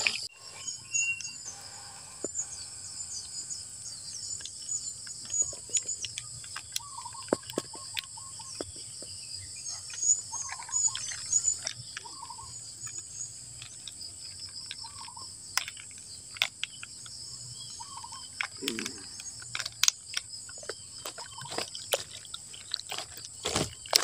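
Steady drone of insects with short, repeated bird calls over it, and scattered sharp clicks and taps.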